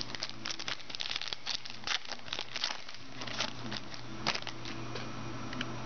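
The wrapper of a 2012 Topps Prime football card pack crinkling and tearing as it is opened: a quick run of sharp crackles that dies down about four and a half seconds in.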